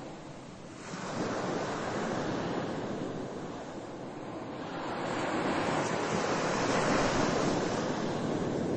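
Ocean waves washing in and drawing back: a rushing hiss that swells and fades every few seconds, with the biggest surge in the second half.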